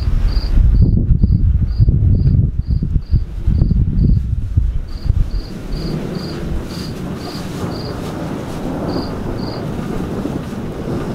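A cricket chirping over and over, about two chirps a second, with short breaks, falling silent about a second and a half before the end. Under it a loud low rumble fills the first four seconds or so, then gives way to a steadier rushing noise.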